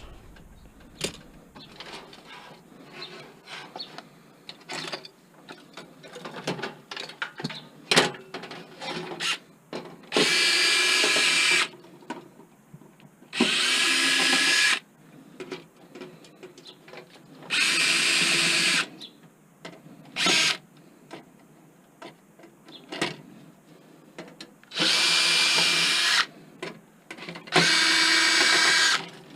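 Cordless drill/driver running in about five short bursts of a second or so each, driving screws out of a desktop computer being stripped for scrap. Light clicks and clatter of parts being handled come between the bursts.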